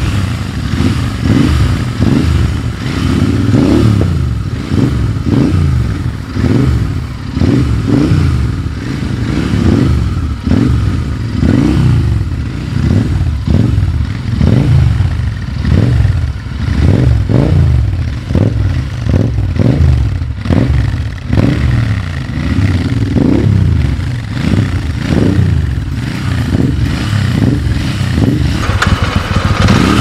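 Royal Enfield Interceptor 650 parallel-twin engine revved again and again in short throttle blips, the pitch rising and falling with each one.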